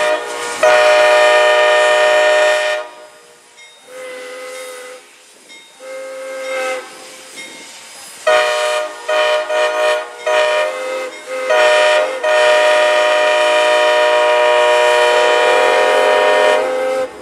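Steam chime whistle of Santa Fe 4-8-4 No. 3751 blowing a series of blasts: a long blast, softer single-note tones, several short blasts, then a long blast of about five seconds.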